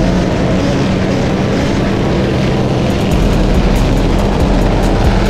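Several motorcycle engines running steadily as a group rides along the street.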